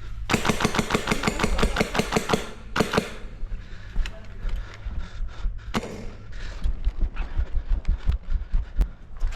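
Airsoft electric gun firing on full auto: a rapid burst of about ten shots a second lasting two seconds, then a short second burst. Scattered single clicks and knocks follow.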